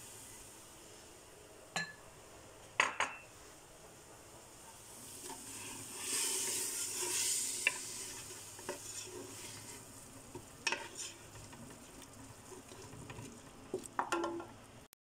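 A wooden spoon stirring and scraping a mixture frying in an aluminium pot, with a light sizzle and several sharp knocks of the spoon against the pot.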